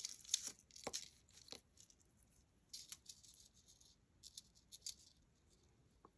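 Faint, scattered clicks and light rattles of jewelry being handled, beads and chain knocking together. The clicks come in small clusters with short pauses between.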